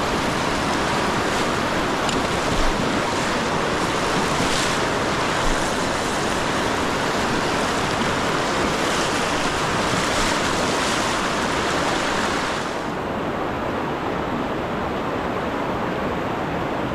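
Rushing river water, a steady wash of noise, with a few faint clicks. The highest part of the hiss drops away about thirteen seconds in.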